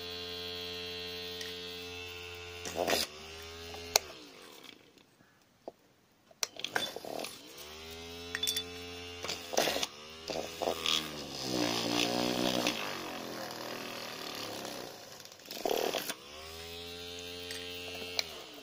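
Homemade hand drill built from a 775 DC motor, whining as it spins up to speed, then stopping and restarting three times. Around the middle its pitch sags and wavers as the bit is pressed into a thin metal plate, and a few clicks and knocks fall between the runs.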